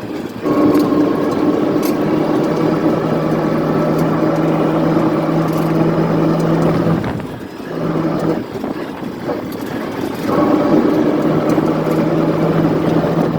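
A motor engine running steadily, easing off briefly about halfway and picking up again.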